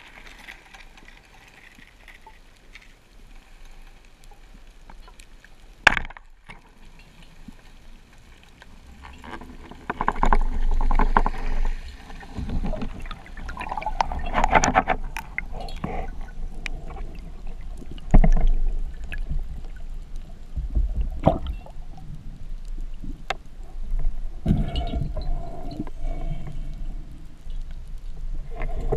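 Underwater sound from a diver's camera: a single sharp crack about six seconds in, the shot of a wooden band-powered speargun, followed from about ten seconds on by louder irregular rushing water, knocks and clicks as the diver swims and hauls in the shooting line.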